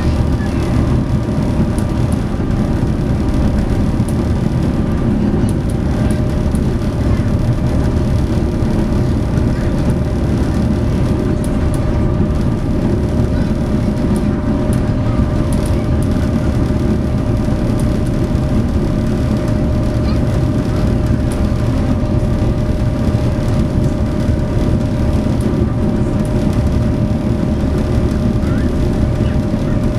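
SeaBus passenger catamaran underway, its diesel engines running steadily: a loud low drone with a few steady hum tones above it.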